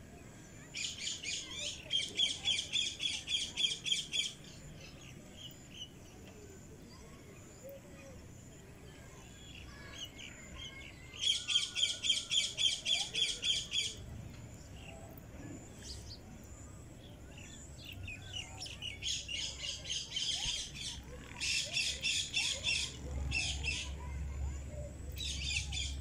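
Cockatiel chirping in quick runs of short, evenly repeated high notes, about ten a second, in several spells of two to four seconds with quieter gaps between.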